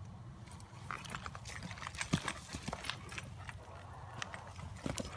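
Hoofbeats of a purebred Arabian mare on soft arena dirt: irregular thuds and scuffs that come thicker from about a second in, as the horse stops and turns to follow the flag.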